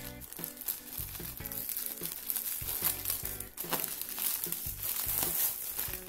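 Plastic packaging crinkling as a postal bag is opened and a plush toy in clear plastic wrap is pulled out, over light background music.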